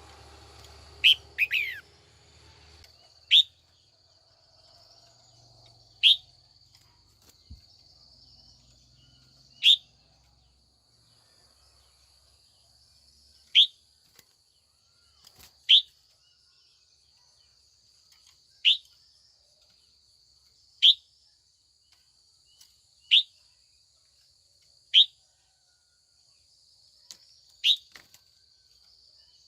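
Red-whiskered bulbul, a female, giving about a dozen short, sharp single calls, each dropping quickly in pitch, one every two to four seconds. A faint steady high insect drone runs underneath.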